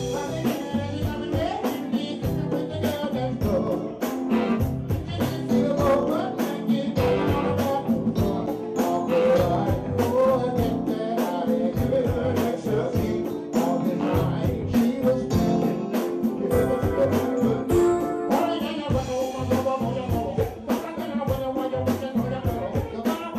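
Live band playing a song, a drum kit keeping a steady beat under keyboard and other instruments.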